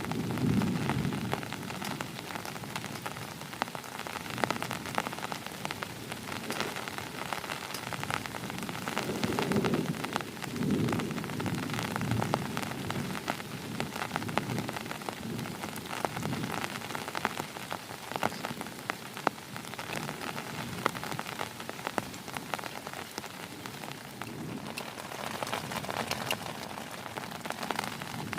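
Heavy rain falling steadily, a dense patter of drops. Low rolls of thunder come near the start and again about ten seconds in.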